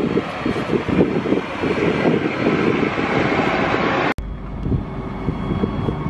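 Claas Lexion combine harvester driving past with its engine running, mixed with gusty wind noise on the microphone. About four seconds in the sound cuts abruptly to a steadier low rumble.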